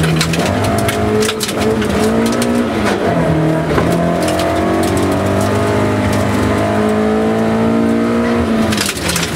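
Rally car engine pulling hard at high revs, heard from inside the cabin. Its note rises and drops several times as the car accelerates and shifts gear, with many sharp knocks over the top.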